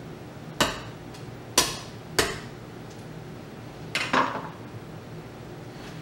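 A kitchen knife and a tough spaghetti squash knocking against a plastic cutting board. There are three sharp knocks in the first two and a half seconds, then a quick double knock about four seconds in as the knife is set down on the board.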